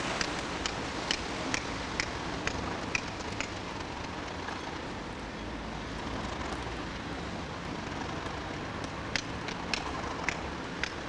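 Several coupled Class 37 diesel locomotives' English Electric engines running with a steady low rumble as they move off, with a steady hiss over it. Sharp clicks come about twice a second during the first few seconds and again near the end.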